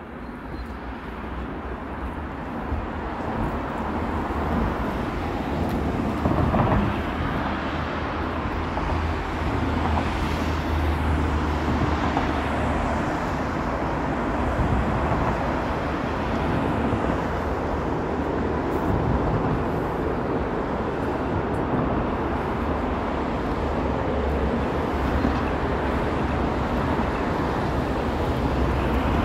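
Steady city street traffic noise with a heavy low rumble. It builds over the first few seconds and has a brief louder swell about six seconds in.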